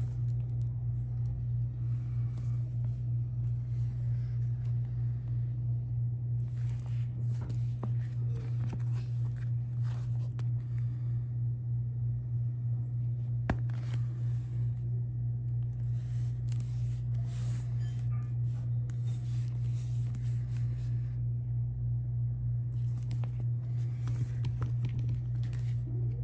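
Hands rubbing and handling a leather-covered Bible: soft rustling and scraping of the cover and pages, coming and going in spells, with one sharp click about halfway through. A steady low hum runs underneath throughout and is the loudest sound.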